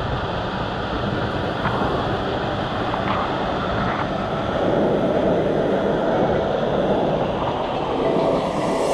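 Steady rushing noise of moving water, with a few faint clicks.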